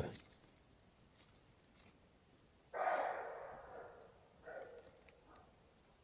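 Faint, hoarse call of an unseen animal, starting suddenly about three seconds in and trailing off over a second and a half, then a shorter call a moment later. The hearer cannot tell whether it is a dog or some other animal.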